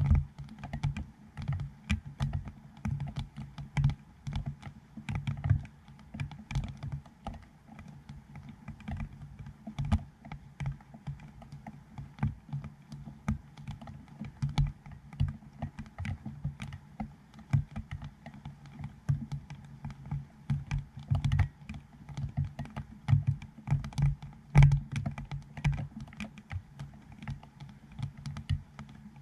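Light rain falling on the dome port housing of a GoPro Hero7, picked up through the housing as irregular dull taps, several a second, some louder than others.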